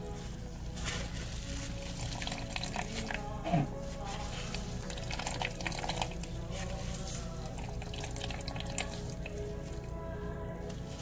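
Cucumber juice trickling and dripping into a plastic bowl as shredded cucumber is wrung out in a paper towel, over steady background music.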